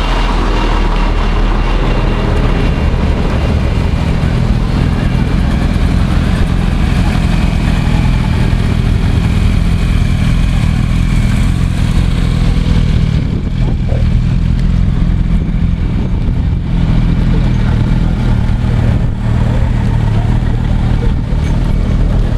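Motorcycles and then cars and vans driving slowly past one after another in a procession, their engines running with a steady low hum.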